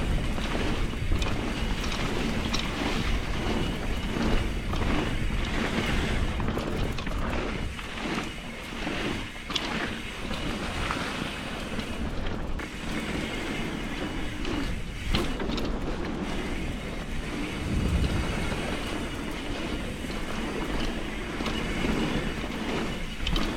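Enduro mountain bike running down a wet dirt trail: steady rolling rumble of the tyres with frequent rattles and knocks from the bike over bumps and roots.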